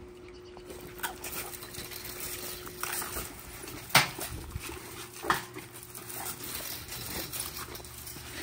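Rottweilers in a chain-link kennel making dog sounds, with a few sharp knocks, the loudest about four seconds in.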